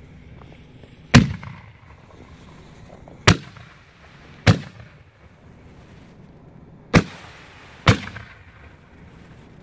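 Strobe mine shells firing one after another from a rack: five sharp launch booms at uneven gaps of about one to two and a half seconds, each a lift charge throwing a spray of strobe stars into the air.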